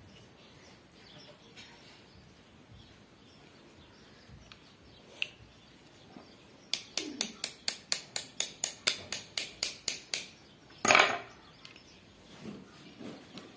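Hand-tool work: a run of about sixteen sharp clicks, roughly four or five a second, for about three and a half seconds, then one louder scraping clatter.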